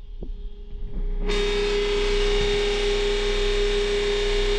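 Pump motor of a newly installed onboard water system starting up for the first time. About a second in it starts and then runs steadily and loudly, with a strong steady hum.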